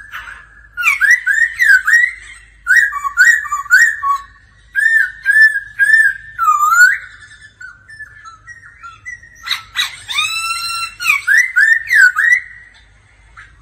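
Laughingthrush singing a loud whistled song of quick, looping, slurred notes. It dips to a few faint notes past the middle, then comes back with a run of loud rising whistles.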